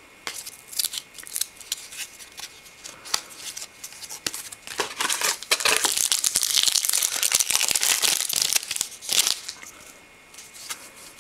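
Trading cards flicked and slid against one another, with scattered clicks. About halfway through, a card pack's wrapper is torn open and crinkled for a few seconds, then the cards are handled again.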